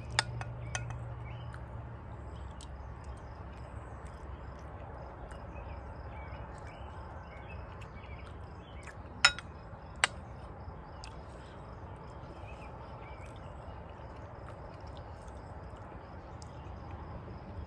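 Metal spoon clinking against a ceramic bowl while eating, with two sharp clinks a little under a second apart about halfway through and a few lighter taps. Underneath, a faint steady background with faint high chirping.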